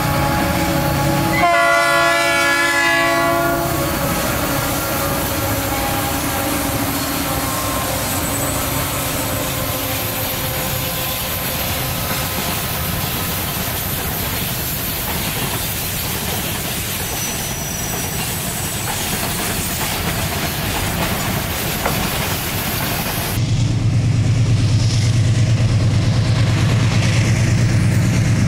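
A diesel freight locomotive's air horn sounds once for about two seconds, a chord of several notes, then the freight cars roll past with steady rail noise. After a cut near the end, another approaching diesel locomotive's engine gives a strong low drone.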